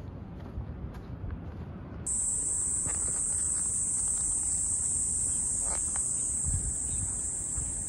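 A loud, steady, high-pitched drone of insects starts abruptly about two seconds in and runs on without a break, over low thuds of footsteps on a path.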